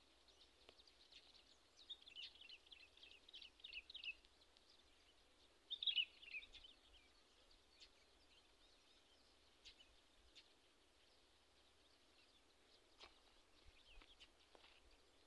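Faint chirping and twittering of small birds over quiet open-air background, in a quick run about two to four seconds in and a louder burst about six seconds in, with a few faint clicks near the end.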